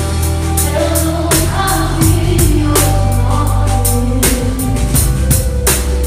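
Live band music: a woman singing lead into a microphone over a band with drum kit, with drum strikes and sustained low notes under the melody.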